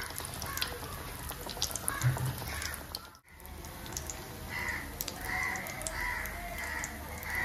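Cutlets frying in hot oil, with scattered crackles. There is a brief break about three seconds in, and after it a bird calls over and over in the background.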